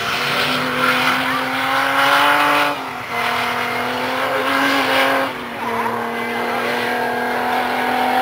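Comp safari off-road race car's engine running hard at high revs on dirt. The engine note breaks and drops twice, a little under 3 seconds in and again past 5 seconds, as the driver lifts or changes gear.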